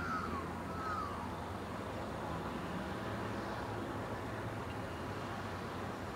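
Steady low rumble of an approaching Tangara electric suburban train, with a few short bird chirps in the first second.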